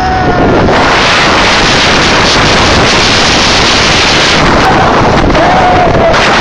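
Heavy wind rushing over the microphone as the front row of the Kingda Ka coaster train races along at launch speed. A brief held high tone cuts through near the start and again about five seconds in.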